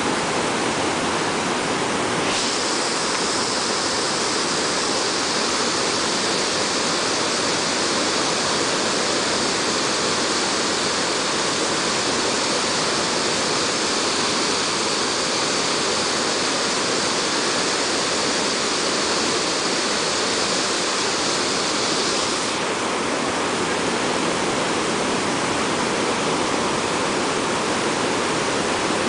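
Waterfall's rushing water, a loud steady noise of falling water. A sharper hiss joins in about two seconds in and drops away about two-thirds of the way through.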